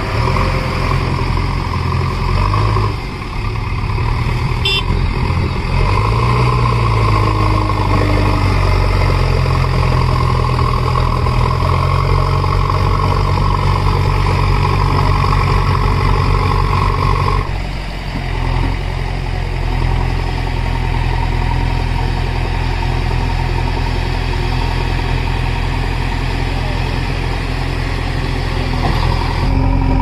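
JCB 3DX backhoe loader's diesel engine running close by under digging load. The engine note rises a few seconds in and drops back briefly just past halfway, then runs on steadily.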